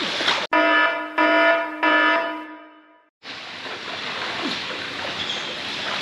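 Splashing pool water is cut off abruptly by an edited-in sound effect: three ringing tones about two thirds of a second apart, fading away. A brief dead silence follows, then the splashing water returns.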